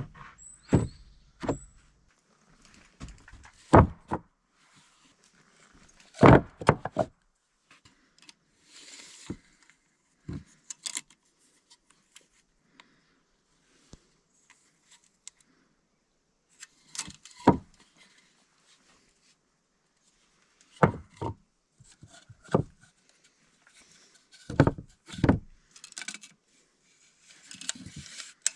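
Loose wooden planks knocking and clattering as they are handled and set down on other boards: a series of separate hard thumps spread through, with quieter scraping of wood on wood between them.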